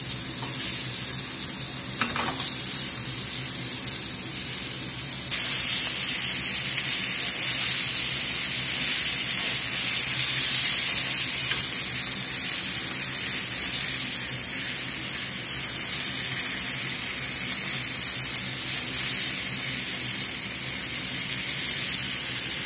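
Flour-dredged chicken thighs and drumsticks sizzling steadily in clarified butter in a skillet, browning skin side down as the fat renders out of the skin. The sizzle gets louder and brighter about five seconds in.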